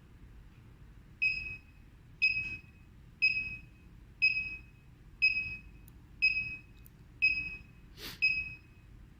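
X10 WiFi/GSM alarm control panel beeping, short high beeps about once a second, after being set to home arm. A single sharp click comes about eight seconds in.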